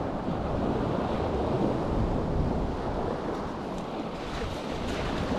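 Small waves breaking and washing up a pebble beach, with wind buffeting the microphone.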